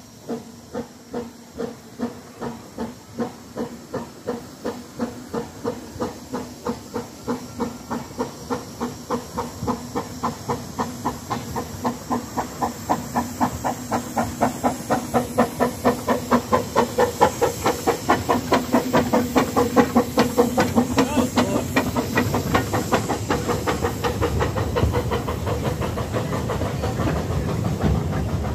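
Small narrow-gauge steam locomotive pulling away and passing close by, hissing steam. Its exhaust chuffs get louder and quicker, from about one and a half a second to two or three a second. Near the end the chuffs merge into the steady running noise of the carriages rolling past.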